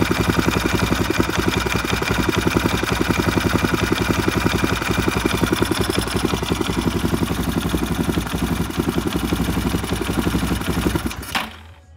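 Husqvarna 610 motorcycle's single-cylinder four-stroke engine idling steadily with an even, fast pulse. It cuts off shortly before the end.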